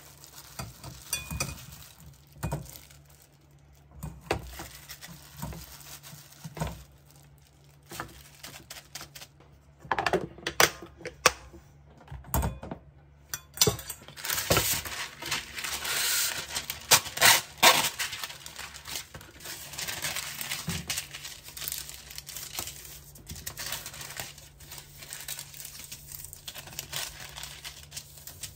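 Kitchen handling sounds: plastic and paper crinkling and rustling, with scattered small clicks. A few sharper knocks come about ten to thirteen seconds in, followed by a denser stretch of crinkling.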